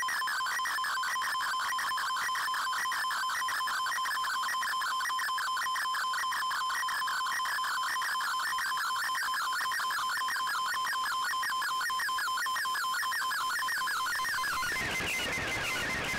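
Shortwave digital picture signal coming through the receiver's speaker: a fast-warbling tone wavering up and down a few times a second over a steady whistle, carrying an image being decoded line by line. Near the end a burst of static hiss briefly rises over it.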